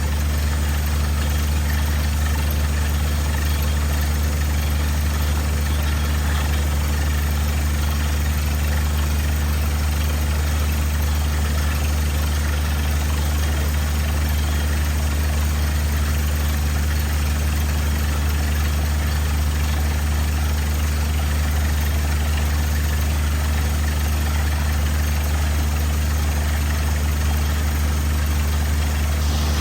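A heavy engine running steadily at a constant speed: a deep, even hum that does not change.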